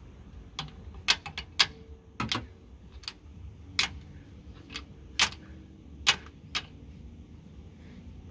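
Hand tools clinking: a socket, extension and long breaker bar being fitted and handled on the cylinder-head bolts of a Detroit Diesel 8V71, with sharp metal clicks and clacks. There are about ten of them at uneven spacing, stopping about a second and a half before the end.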